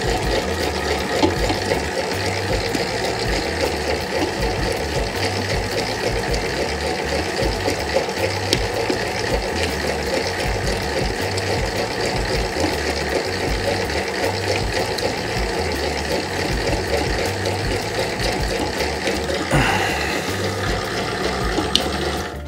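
Famag IM5 spiral mixer running steadily, its spiral hook turning a ball of high-hydration pizza dough in the steel bowl.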